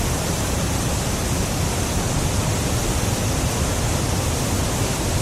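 Floodwater rushing and pouring in a steady, even wash of noise.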